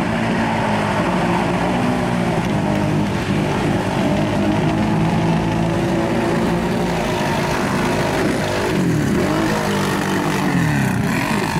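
Modified ATV engine running hard at high revs as the quad drives through deep muddy water, with water spraying. Its pitch dips and rises several times near the end as the throttle comes off and back on.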